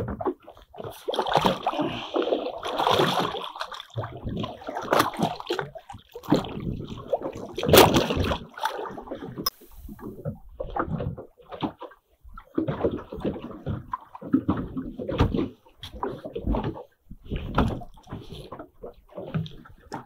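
Water slapping and sloshing against the hull of a small boat drifting on open sea, mixed with irregular knocks and clatter from handling gear aboard. The loudest knock comes about eight seconds in.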